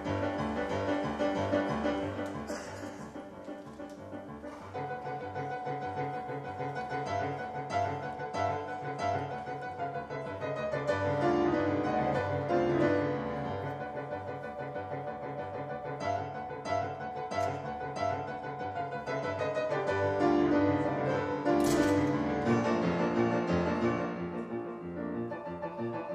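Steinway concert grand piano played solo: a flowing passage over a repeating bass pattern, swelling louder about halfway through and again near the end.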